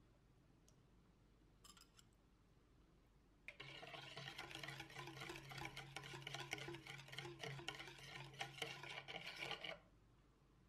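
Wire whisk beating a thin liquid batter in a plastic mixing bowl: rapid, steady scraping and clinking of the wires against the bowl. It starts suddenly about a third of the way in and stops suddenly about a second before the end.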